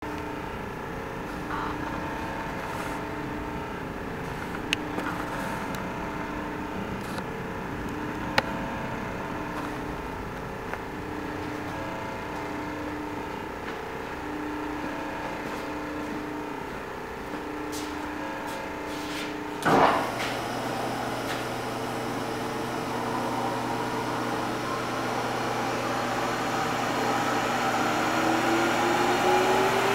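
Steady machine-shop hum with a tone that pulses about every second and a half. About two-thirds through there is a sharp clunk, and a steady low motor hum sets in. Near the end a whine rises steadily in pitch as the Acra Mill vertical milling machine's spindle is brought up to speed.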